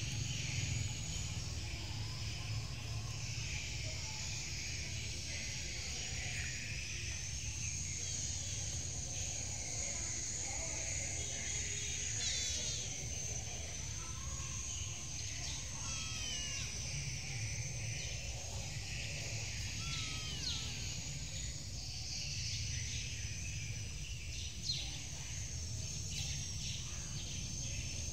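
Outdoor ambience: a steady high insect drone, with a few short bird chirps around the middle, over a low steady rumble.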